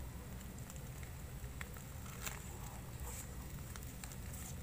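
Faint crackling and rustling of a scorched banana leaf being peeled back off an omelette cooked without oil in a hot wok, with a few soft clicks over a low steady hum.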